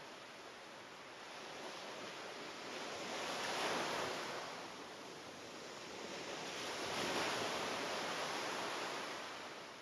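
Ocean waves washing onto a sandy beach, two swells of surf rising and falling, the first peaking about four seconds in and the second about seven seconds in.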